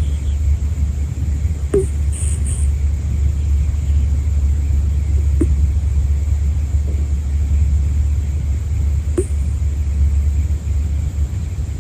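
A sleeping senior cat's nose giving a short squeaky 'puu' whistle with its breathing, three times, about every three to four seconds. The squeaks sit over a steady low rumble that is the loudest thing.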